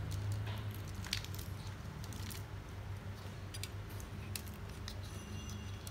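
Faint, scattered clicks and rustles of small plastic electrical parts and wiring being handled, over a steady low hum.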